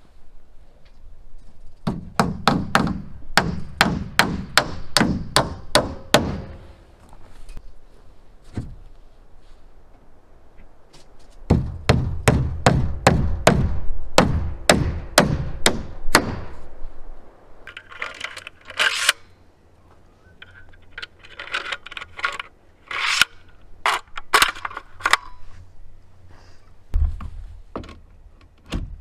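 Hammer driving nails into wood: two runs of quick, even blows, about three a second, then a stretch of lighter, sharper knocks.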